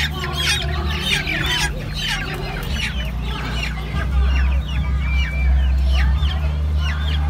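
A cage full of young black chickens calling, with many short high peeps and clucks overlapping without pause, over a steady low hum.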